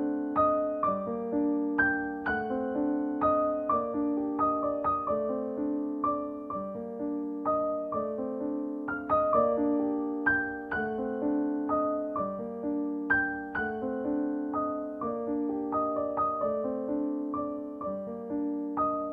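Background music: a solo piano playing a gentle, even melody of single notes, each struck and left to ring out.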